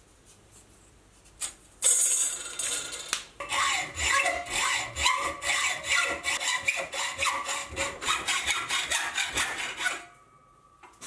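Hand hacksaw cutting a mild steel bar clamped in a bench vise: rapid back-and-forth rasping strokes begin about two seconds in and stop abruptly about a second before the end.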